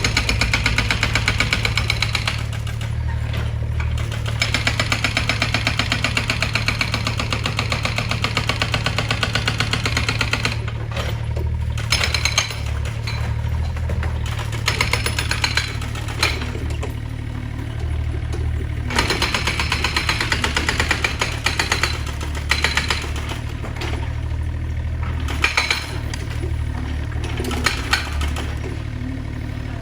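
Demolition excavator's diesel engine running steadily under load, with long spells of fast, rhythmic hammering against masonry and a few sharp, louder knocks of breaking material.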